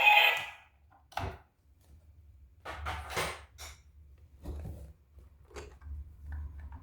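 Music cuts off just after the start, then a few short, separate clicks and rustles of small objects being handled, typical of toys and packaging during an unboxing.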